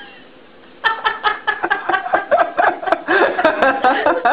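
Rapid run of laughter-like vocal sounds, short pitched calls tumbling one after another, starting about a second in after a near-quiet moment.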